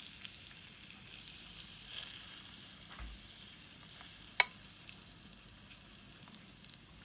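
Butter sizzling faintly and steadily under a sheet of lavash on the hot plate of an electric sandwich maker, with small scraping clicks from a fork spreading the filling and one sharp tap about four and a half seconds in.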